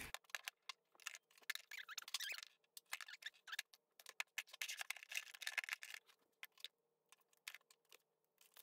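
Skincare jars, bottles and tubes being set down one after another into a drawer: faint, quick clicks and light knocks of small containers, busiest in the first six seconds and sparser after.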